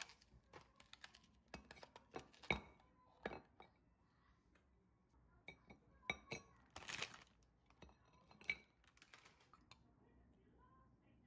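Frozen brown rice and chicken-breast dumplings set down one by one on a ceramic plate: faint, scattered clicks and taps, with a brief rustle about seven seconds in.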